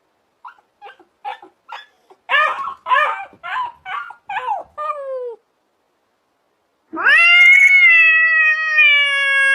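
A cat meowing: a quick run of about a dozen short meows, then one long, drawn-out meow starting about seven seconds in that dips in pitch as it ends.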